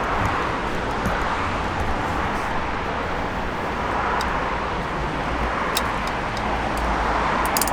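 Steady hum of road traffic, with a few faint light clicks of plastic parts being handled.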